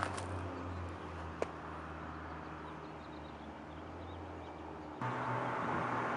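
Straight-piped BMW M235i's turbo inline-six running at a low, steady drone. The drone fades gradually, with a single sharp click about a second and a half in, then steps up louder again about five seconds in.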